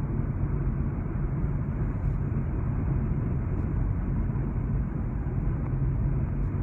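Steady road and tyre rumble with engine noise inside a car cabin, cruising at highway speed.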